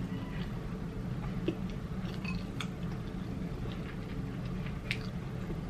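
Chewing of fried chicken, with a few sharp crackles and clicks from handling the crispy fried food, over a steady low hum.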